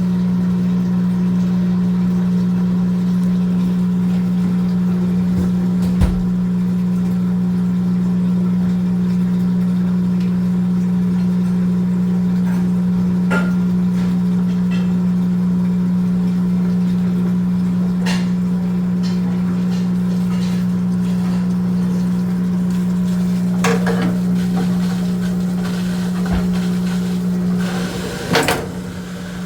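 Whirlpool washing machine running with a steady, loud low hum, scattered with faint clicks and knocks. Near the end the hum wavers and there is a short clatter.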